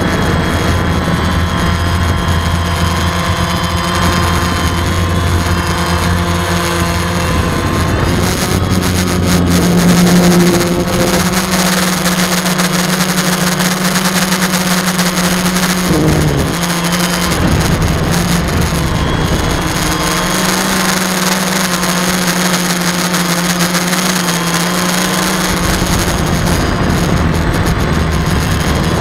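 DJI multirotor drone's electric motors and propellers buzzing in flight, heard close up from a camera mounted on the drone, the hum shifting in pitch several times as it manoeuvres.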